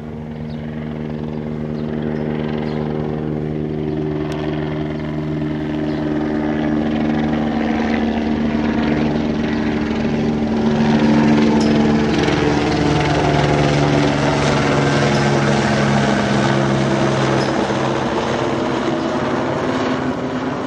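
An aircraft passing overhead: a steady engine drone with several held tones, growing louder over the first half and staying loud.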